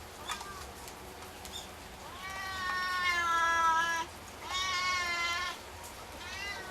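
Domestic cat meowing to demand food. A short meow comes first, then three longer drawn-out meows, the longest lasting about two seconds.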